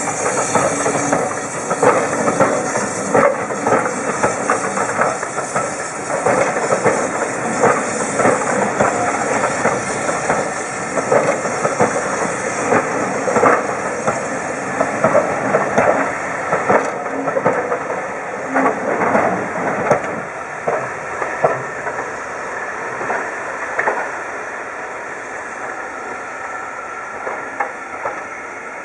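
Passenger coaches of a steam-hauled train rolling past, their wheels clicking over the rail joints under a steady hiss of steam. The sound tapers away near the end as the tail of the train goes by.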